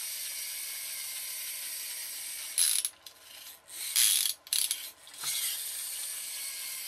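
Toy truck's friction (flywheel) motor gearbox whirring as its wheels are spun by hand, the small plastic gears giving a steady ratchety buzz. The whirr breaks off and comes back in a few short, louder bursts around the middle.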